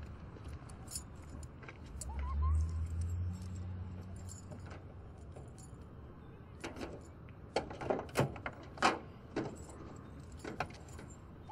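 Keys jangling and clicking in a car's trunk lock, then a few sharp knocks and clatters as the trunk is unlocked and its lid swung open, in the second half. Before that, a low rumble about two seconds in.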